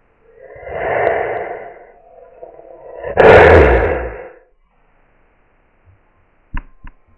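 Wolf sound effect voiced by a person: two rough, breathy snarl-like bursts, the second louder and deeper. Two short clicks near the end.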